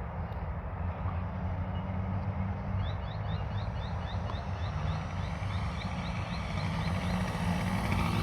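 OS GT33 single-cylinder two-stroke gas engine of an RC Yak 54 running in flight, its pitch shifting slightly. From about three seconds in, a run of quick, high rising chirps, about three a second, goes on for roughly four seconds.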